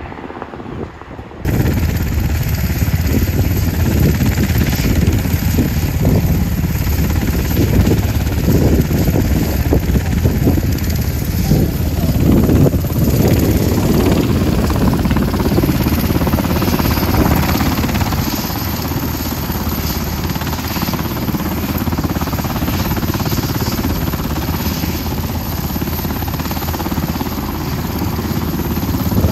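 Helicopter's turbine and rotor running close by, a loud steady rush with a fast beat from the blades and a held engine tone, starting abruptly about a second and a half in.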